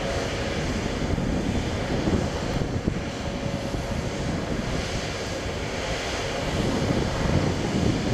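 Wind buffeting the microphone in uneven gusts, over a steady low rumble.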